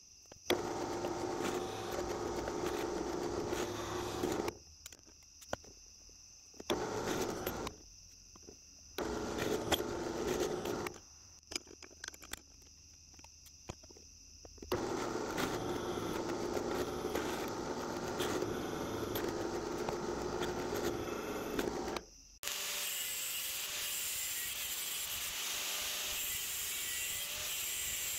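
Drill press running and drilling holes in a steel plate, in four stretches with short stops between them. About 22 seconds in, it gives way to an angle grinder with a cut-off disc cutting into a steel part, a steady, higher-pitched grinding.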